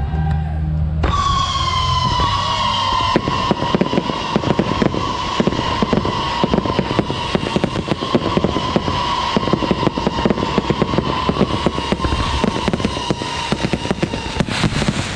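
A long string of firecrackers going off in rapid, continuous crackling, starting about a second in. A steady high tone sounds over it, slowly dropping in pitch.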